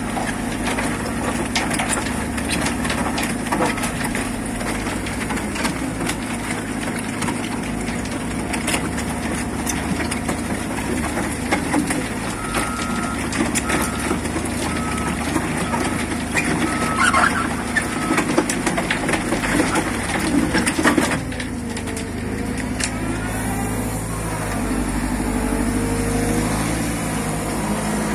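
DSG 20 crusher bucket running on a Cat 316F excavator, crushed soil and stone rattling and clattering down out of it. About three-quarters of the way through the crushing stops, leaving the excavator's diesel engine and hydraulics running with a pitch that rises and falls.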